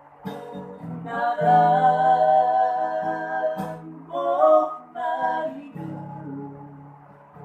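A voice singing a song to acoustic guitar accompaniment, holding long notes with vibrato over the guitar's chords, with a short break in the line about halfway through.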